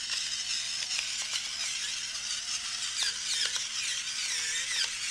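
Electric pepper mill grinding black peppercorns: a steady small-motor whir with a grinding rasp, running without a break.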